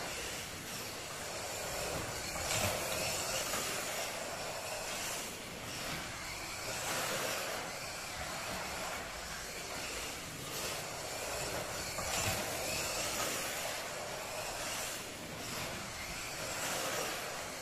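A 1:24 scale slot car, the homemade Jaguar XJR-9, lapping an electric slot-car track: a hissing whine from its motor and tyres on the track swells and fades repeatedly as it comes past and goes away.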